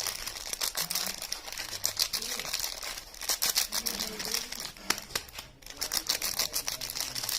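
Soap packaging wrappers being handled and unwrapped, a dense run of quick crinkling crackles with brief pauses.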